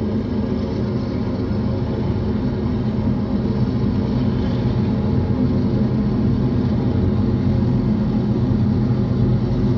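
BNSF diesel locomotives hauling an intermodal freight train past, their engines running with a steady low drone that grows slightly louder as they come by.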